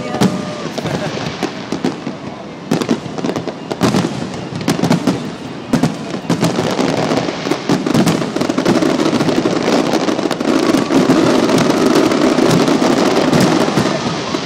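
A fireworks display: bursts and bangs going off in quick succession, over a background of crowd noise. From about eight seconds in they merge into a dense, continuous barrage.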